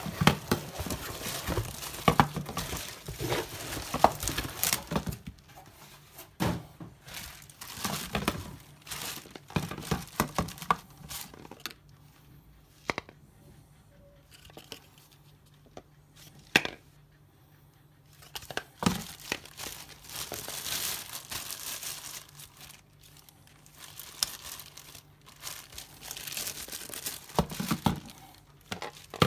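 Clear plastic bags crinkling as bagged plastic shaker bottles are handled and lifted from a cardboard box, with scattered sharp knocks as they are set down. The rustling eases off in the middle and picks up again near the end.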